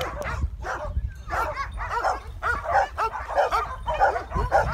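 Guard dogs barking in quick, overlapping barks, over a low rumble of wind on the microphone.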